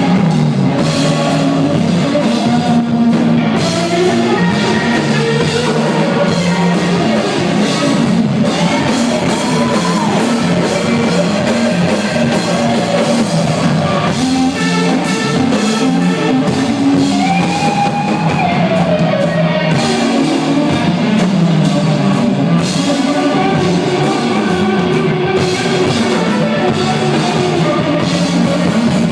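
A live rock band playing loudly, with distorted electric guitar and a drum kit driving the song.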